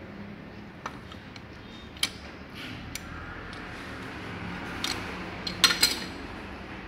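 Metal wrenches clinking on the hex plug of a Toyota Kijang power-steering rack: a few scattered light ticks, then a short cluster of clinks near the end as the wrenches come off.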